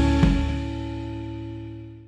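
Background music ending on a held chord that fades away.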